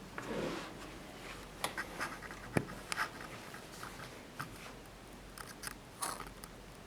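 Handling of a small portable typewriter: a few irregular sharp clicks and knocks over a light rustling, not the steady rhythm of typing.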